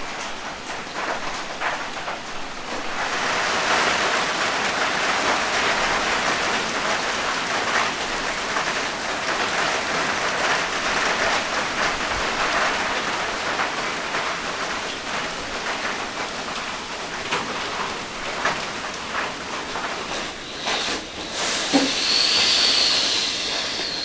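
Heavy rain pouring down steadily, growing louder about three seconds in, with scattered small ticks of drops. A brief high squeal comes near the end.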